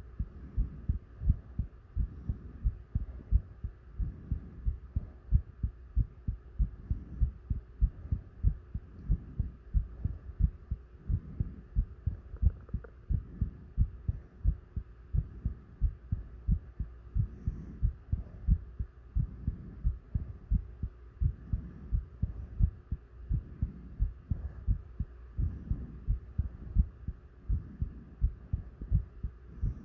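Human heartbeat: a steady, fast run of low, dull thumps in lub-dub pairs, with slower swells of heavy breathing underneath every few seconds.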